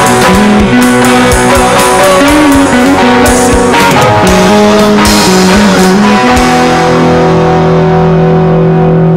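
Live church praise band with electric guitars and drums playing the last bars of a worship song. The drum hits stop about six seconds in, and the band ends on a chord that rings on.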